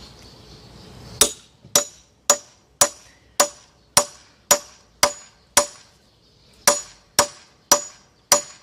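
Hatchet blows striking a log, about a dozen sharp strikes at roughly two a second with a brief pause partway through, each with a short ringing tail.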